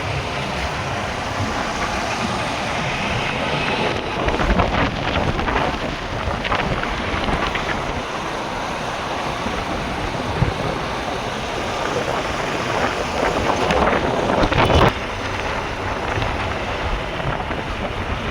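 Wind buffeting the microphone over a steady outdoor rumble of vehicles, with a few short knocks.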